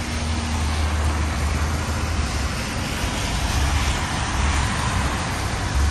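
Steady road noise from inside a car moving on a wet freeway: a low rumble of tyres with wind noise and the hiss of tyres on wet pavement.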